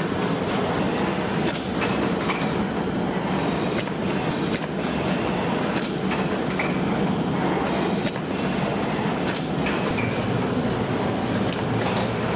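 Carton-making machinery, a sheet feeder and a roller gluing machine, running steadily: a continuous mechanical rumble with scattered clicks and knocks.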